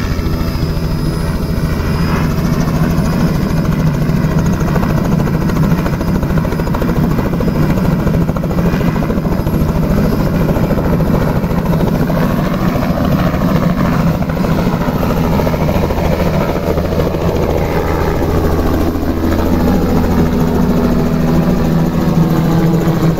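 Light helicopter with a two-bladed main rotor running at full speed, its blades chopping steadily, as it lifts off from the field and climbs away. The pitch of the rotor and engine shifts near the end as it gets airborne.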